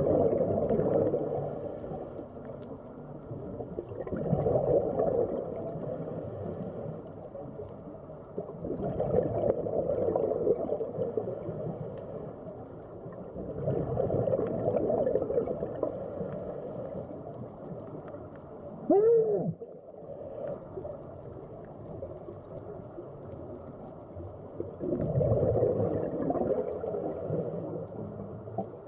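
A scuba diver breathing through a regulator underwater: bursts of exhaled bubbles gurgling every five to nine seconds, each followed by a short hiss. About two-thirds of the way through there is one short, loud squeal that rises and falls.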